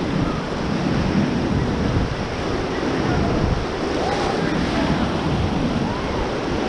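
Whitewater river rapids rushing and churning, a steady noise of fast-moving water.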